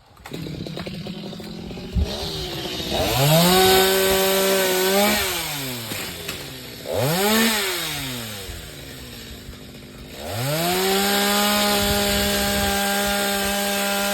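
Two-stroke chainsaw idling, then revved to a steady high full-throttle pitch for about two seconds, dropped back, blipped once briefly, and revved and held again for the last few seconds.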